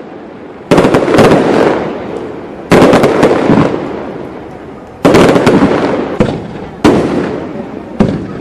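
Fireworks display: aerial shells bursting with sharp loud bangs, about seven in all, every one to two seconds, each bang trailing off slowly.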